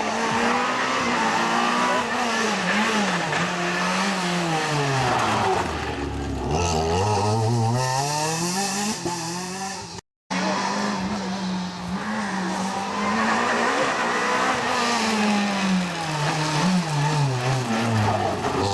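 Rally car engines at high revs on a special stage, in two passes split by a cut: the first drops sharply in pitch as it slows about six seconds in, then climbs steeply as it accelerates away; the second holds high revs, dips and rises again near the end.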